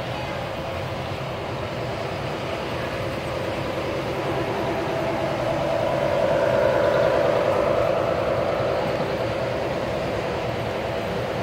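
O scale two-rail model trains running on the track: a steady rolling noise of metal wheels on rail with motor hum, growing louder about halfway through as cars pass close, then easing off.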